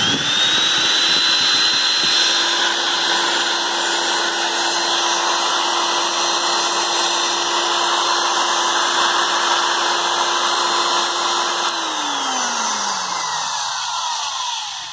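380-watt electric die grinder switched on, its motor quickly spinning up to a steady whine. About twelve seconds in it is switched off and spins down, the whine falling in pitch as it coasts to a stop.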